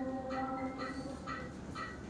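The accompaniment's last held chord fades out about a second in. Over it, a sound-effect animal call, short and bird-like, repeats about twice a second.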